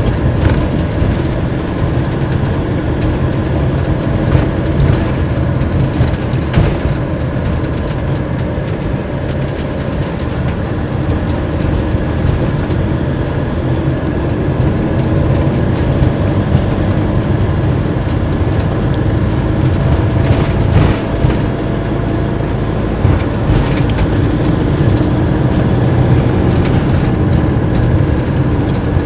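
Cab noise of a Fiat Ducato-based motorhome driving slowly: the diesel engine and tyres give a steady low rumble, with occasional knocks and rattles from the cab and coachwork over bumps in the road.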